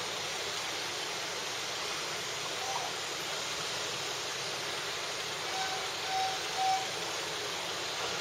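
Steady hiss, with a few faint short coos from a three-month-old baby, once about a third of the way in and three times in a row later on.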